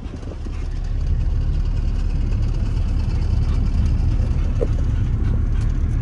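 Honda Civic's four-cylinder engine running with a rapid knocking from a failing connecting rod. The noise builds over the first second and then holds steady.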